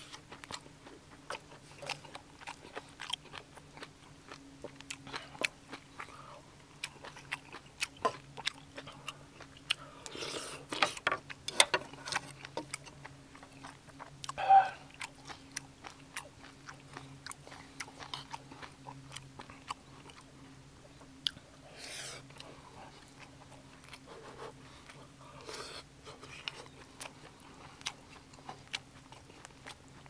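Close-miked chewing and biting of braised kimchi and pork belly: wet mouth sounds and many small clicks, with one brief ringing clink about halfway through, over a steady low hum.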